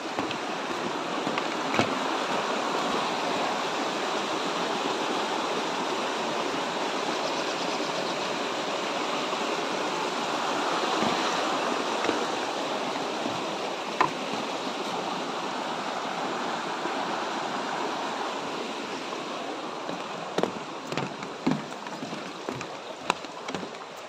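Rushing river water at a waterfall, a steady hiss that swells through the middle and eases off after about nineteen seconds. A few sharp knocks come through it, more of them near the end.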